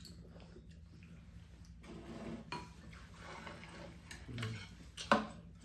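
Spoons and chopsticks clinking and scraping against ceramic bowls and side-dish trays at a meal, with one sharper clink about five seconds in.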